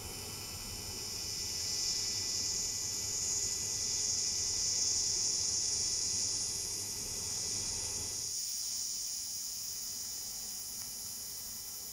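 TIG welding arc on stainless steel, a steady hiss that swells for a few seconds; the low part of the sound drops away about eight seconds in while a fainter hiss goes on.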